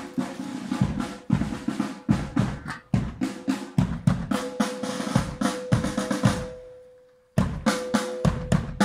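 Marching snare drum and bass drum playing a steady, rhythmic cadence. About seven seconds in the drumming dies away, then it starts again abruptly.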